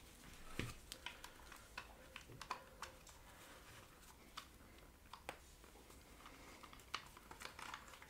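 Faint, irregular small clicks and taps of a KGP-9 submachine gun's metal parts being handled as its recoil spring assembly is pushed forward and worked loose.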